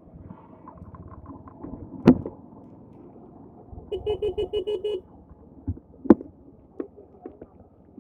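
A vehicle horn sounding a rapid string of beeps, about eight a second, for about a second midway, over the low running of a motorcycle. Two sharp knocks, the loudest sounds, come about a second before and a second after the horn.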